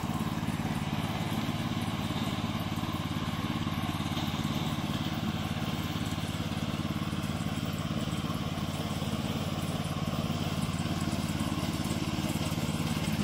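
Small gasoline engine of a remote-controlled slope mower running steadily as the mower drives along.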